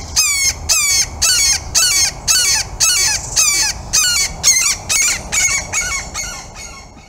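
Red-shouldered hawk calling a long series of kee-aah screams, about two a second, each note slurring downward; the series fades away over the last couple of seconds.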